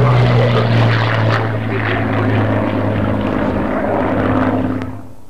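A single-engine WWII piston fighter's propeller engine running steadily overhead, its note slowly fading as the aircraft flies away. The sound drops off abruptly about five seconds in.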